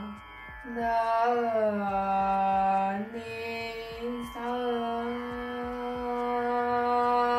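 Background devotional music: a voice holding long, slowly gliding notes in a chant-like melody, with short breaks between phrases.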